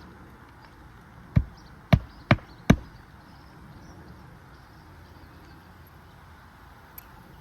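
Hammer striking a roofing nail four times in quick succession, driving a fastener to secure a replacement asphalt shingle.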